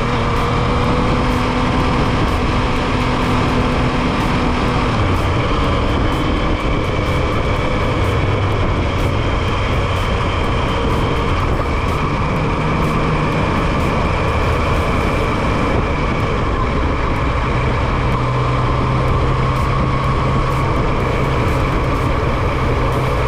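Yamaha MT-09's inline three-cylinder engine running while the motorcycle is ridden on the road, under a steady rush of wind noise. The engine note holds at one pitch, then fades about four seconds in and comes back at a lower pitch near the middle and again near the end.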